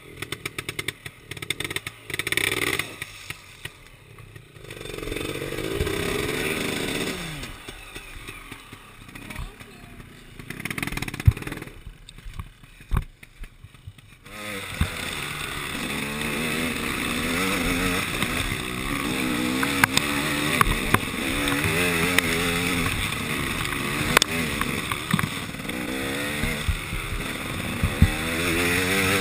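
Dirt bike engines: during the first half, short revs and blips, with one rev rising and falling about five seconds in. From about halfway, a KTM 300 XC two-stroke enduro engine runs without a break, its pitch wavering up and down with the throttle while under way.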